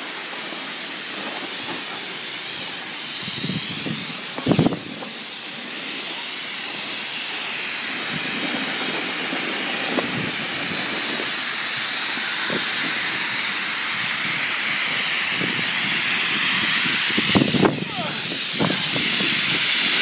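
Snowboard base and edges sliding and scraping over packed snow, with wind rushing over the phone's microphone: a steady hiss that grows louder as the board picks up speed. A couple of short, low buffets come about four seconds in and again near the end.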